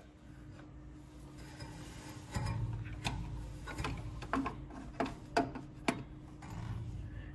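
Distributor being worked down into its bore in the Dodge M37's engine by hand: several light metal clicks and rubbing scrapes as it is seated onto its offset drive tab.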